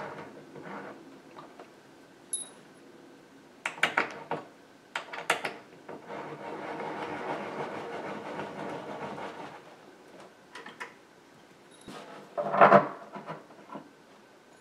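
Metal bolts being driven by hand with an Allen key into the particleboard corners of a flat-pack IKEA KALLAX shelf: scattered clicks and clinks of the key and bolt, a few seconds of steady scraping rub as a bolt turns in, and a louder knock about twelve seconds in.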